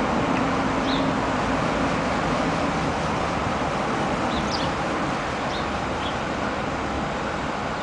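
Steady hum of city traffic, with a few short, high bird chirps scattered through it.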